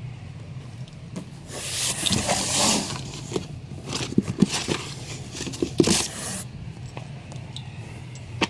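Comics and a cardboard shipping box being handled: a long scraping rustle about two seconds in, then a run of light knocks and taps with more rustling as books are moved in and out of the box.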